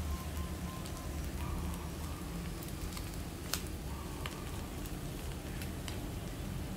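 Stir-fried instant noodles and pork sizzling in a wok on a gas stove, a steady crackle with scattered sharp pops.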